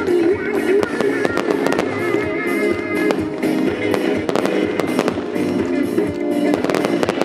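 A song playing with fireworks going off over it: many sharp bangs and pops, repeated through the whole stretch.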